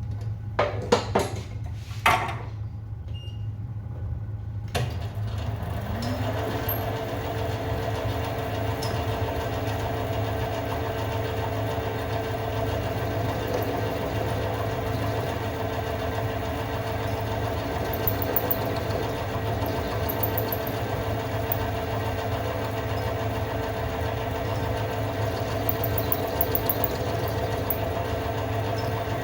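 A few sharp clicks, then about five seconds in a small electric power tool's motor starts, its pitch rising briefly as it spins up before running steadily, as work is done on a pistol firing pin being lengthened.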